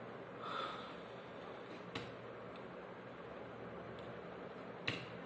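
Two sharp single clicks at a computer while switching from the code editor to the command prompt, about two seconds in and a louder one near the end, over a faint steady hiss.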